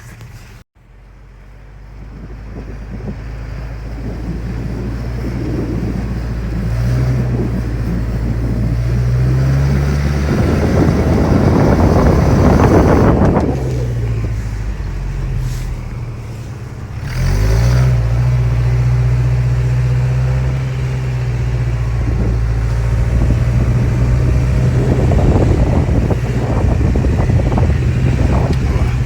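Toyota pickup's 22RE four-cylinder engine running under load over rough ground, its pitch stepping up and dropping back as the revs change. A loud rushing noise swells in around the middle and fades a few seconds later.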